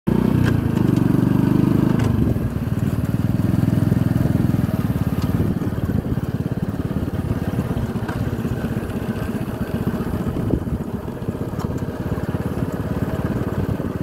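Motorcycle engine running steadily while riding, with a fast, even firing pulse; it is loudest for the first two seconds, then eases a little.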